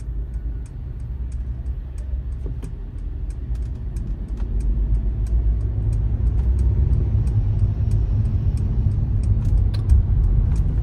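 Car cabin road and engine noise while driving: a steady low rumble that grows louder about halfway through, with faint scattered light clicks.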